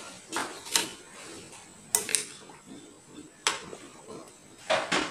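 Metal ladle clinking against the side of an aluminium cooking pot, a handful of sharp, irregular clinks, as fat and scum are skimmed from boiling pork broth.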